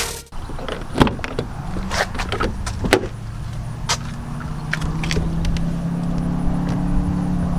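Scattered sharp clicks and knocks of plastic parts being handled in a car door, the loudest about a second in and near three seconds in, over a steady low hum that sets in around four seconds in.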